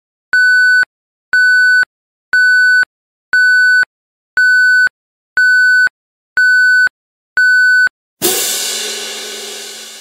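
Countdown timer beeping, a short steady electronic beep once a second, eight times. About eight seconds in, a loud crash cuts in and fades away over about two seconds.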